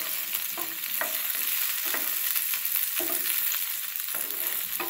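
Chopped onion and green beans sizzling in hot oil in a non-stick frying pan, being sautéed and stirred with a wooden spatula that scrapes across the pan about once a second.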